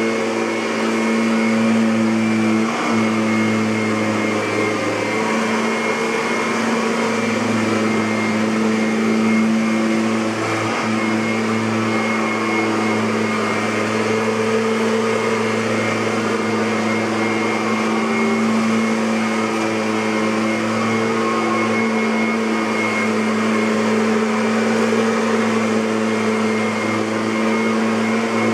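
Kirby Avalir G10D upright vacuum cleaner running steadily, a constant motor and fan hum with a high whine above it.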